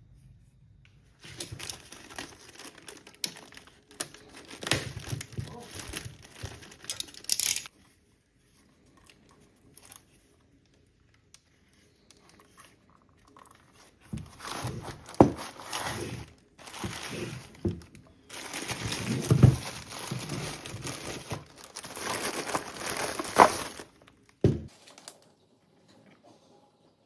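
Scraping, crinkling and rustling from hands working on a power-tool battery pack, in two long stretches with a few sharp clicks.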